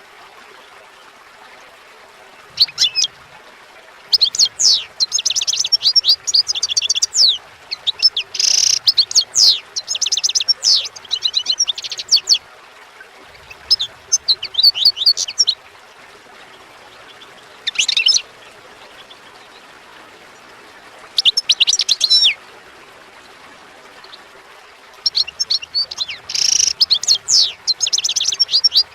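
A songbird singing phrases of rapid, high chirping notes and trills, a second or a few seconds at a time, with pauses in between.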